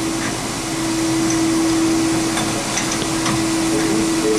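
Propane-powered SP13 concrete polishing edger running steadily: a constant hum with one fixed tone over a hiss, and a few light knocks as the machine is worked into the corner.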